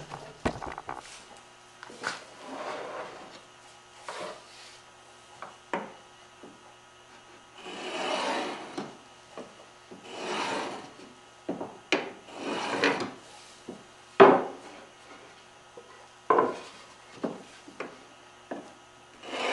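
Marking gauge drawn along the edge of a curly maple case side to scribe a line: several scraping strokes of about a second each, with sharp knocks in between, the loudest about two-thirds of the way in.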